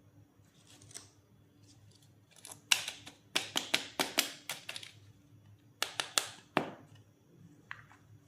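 Toy doctor-set pieces being handled: a soft rustle about a second in, then a quick run of sharp clicks and taps, and three more near the middle.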